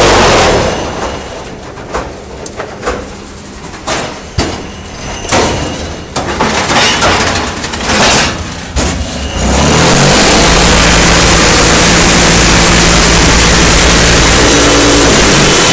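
Concrete paver and block making machine cycling. A loud, steady vibrating noise stops just after the start, then come scattered clanks and knocks of the mould and pallets moving. About ten seconds in, the loud steady rattle and hum starts again as the machine's vibration runs to compact the next mould.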